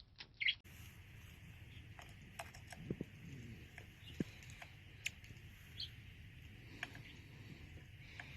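Two sharp crunches near the start, like a pet bird's beak biting into something. Then a faint steady hiss with scattered small clicks and taps, and one brief high chirp past the middle.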